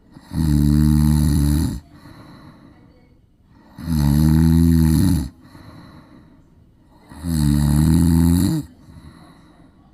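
Cat snoring: three loud snores, each about a second and a half long, coming every three and a half seconds or so.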